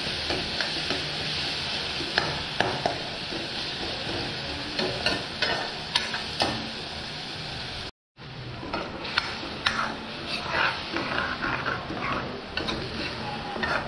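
Curry masala of onion, tomato and ground cumin sizzling in a pan while a spoon stirs it, with frequent clicks and scrapes of the spoon against the pan. The sound cuts out for a moment about eight seconds in, and the clicking is busier after that.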